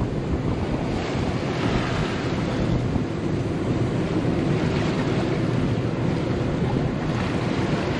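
Wind buffeting the microphone over the rush of water along the hull of a 1999 Carver 504 motor yacht cruising through light chop. The water hiss swells every few seconds as waves pass the hull.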